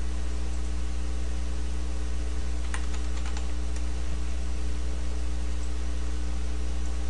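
A steady low electrical hum, with a short quick run of computer keyboard keystrokes about three seconds in as a short search word is typed.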